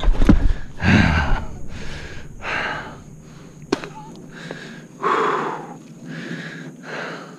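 A man breathing hard and fast, a quick run of gasping breaths roughly one every half second to a second, from the strain of dragging a heavy log by hand. A single sharp click sounds a little after the middle.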